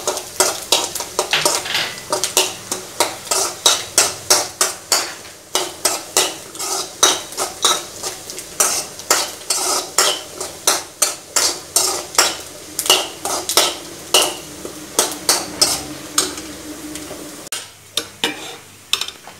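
A steel spoon stirring and scraping cashews and coconut pieces frying in ghee in a metal kadai: quick metallic clinks and scrapes, about three a second, over a light sizzle. The clinking stops shortly before the end.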